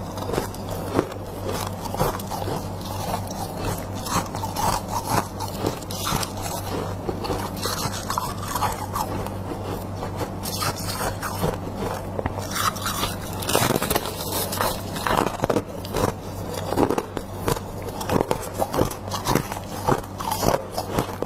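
Close-up crunching and scraping of freezer frost being bitten and chewed in many quick, irregular crunches, over a steady low hum.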